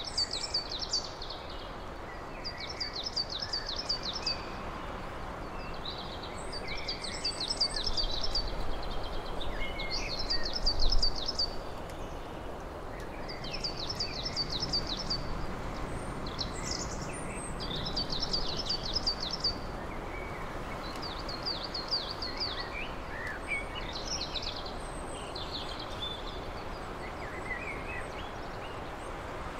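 A songbird singing short, high trilled phrases, repeated about every two seconds, over a steady background rush. A brief low rumble comes about ten seconds in.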